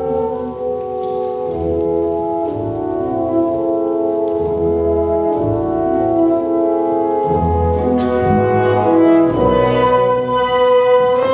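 Orchestral music: slow, sustained brass chords over low bass notes that shift every second or two, with a sharp struck accent about eight seconds in.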